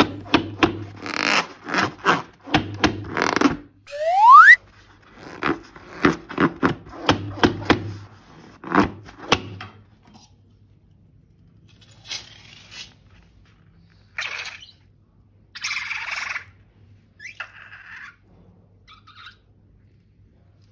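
Slime being handled and squeezed from balloons: a dense run of sticky, crackling clicks and squelches, with a rising squeak about four seconds in. In the second half come a few short hissing squelches, spaced a second or two apart.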